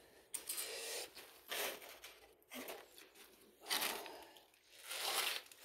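Rummaging through a cardboard box of bagged parts: several bursts of rustling and scraping, with the loudest near the end.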